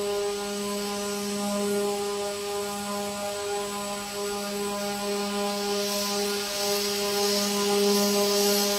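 Steady machine hum, one low tone with several overtones, holding even throughout; a hiss grows louder about two-thirds of the way through.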